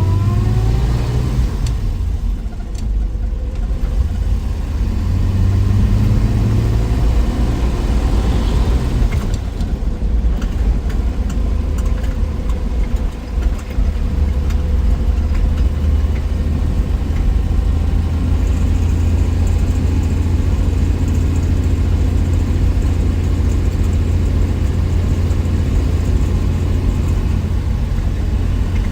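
1963 Willys Wagon's 230 Tornado overhead-cam straight-six under way: the engine rises in pitch as it accelerates, eases off a couple of seconds in, picks up again, then settles into a steady drone at cruising speed.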